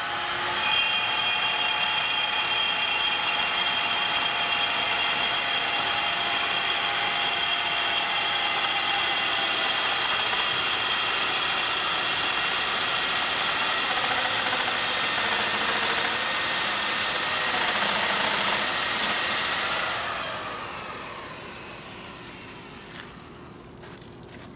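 Virginia Abrasives CD3 three-speed handheld electric core drill running with a steady high whine as its water-fed core bit cuts into a stone block. It comes up to speed at the start and winds down about 20 seconds in.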